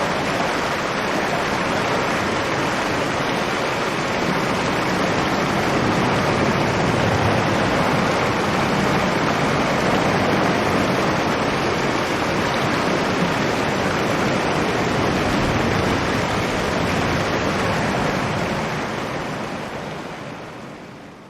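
Strong storm wind heard from inside a cave: a steady, dense rushing noise that fades out over the last few seconds.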